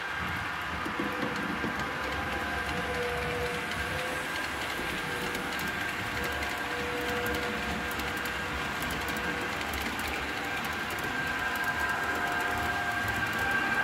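Model trains running on the layout: the electric motors give a steady whine of several tones, and the wheels make light rapid clicking over the track, thicker from about halfway through as two trains pass on the double-track bridge.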